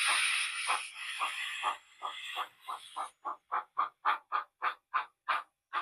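Sound-fitted model Hunslet saddle tank locomotive's decoder steam effects through its small onboard speaker: a steady steam hiss that fades out, then regular exhaust chuffs about three to four a second, growing louder, timed to the wheel speed as the loco moves off.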